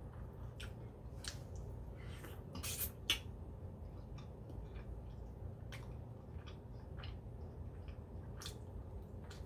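Eating rotisserie chicken by hand, close to the microphone: wet squishing and tearing of meat and skin and chewing with lip smacks, heard as scattered short wet clicks over a low steady hum. A louder wet burst ending in a sharp click comes about three seconds in.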